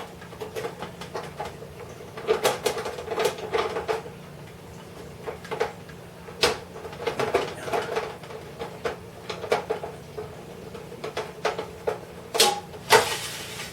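Scattered small clicks, taps and knocks of clock parts and tools being handled during reassembly of a wall clock, with two louder knocks near the end, over a steady low hum.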